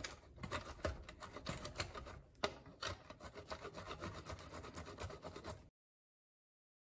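A block of soft cheese being grated on a four-sided metal box grater over a wooden board: a run of faint, quick scraping strokes, which cuts off suddenly about a second before the end.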